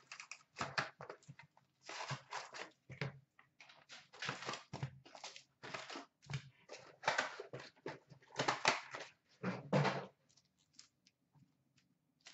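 A cardboard hobby box of 2016-17 Upper Deck SP Authentic hockey cards being torn open and its card packs pulled out and handled: a run of irregular tearing and rustling noises, sparser and quieter for the last couple of seconds.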